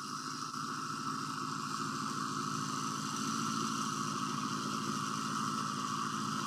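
An engine running steadily at an even speed: a low pulsing hum with hiss above it, growing slightly louder over the first few seconds.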